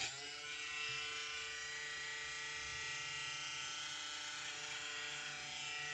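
Electric beard trimmer switched on, its motor spinning up and then running with a steady buzz.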